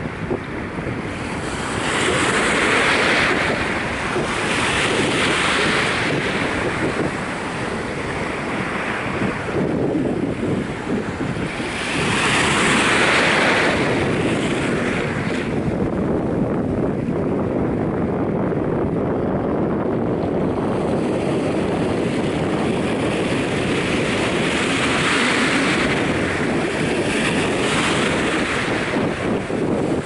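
Small Caribbean waves lapping and washing over the sandy shore, the wash swelling and easing every few seconds. Steady wind rumbles on the microphone underneath.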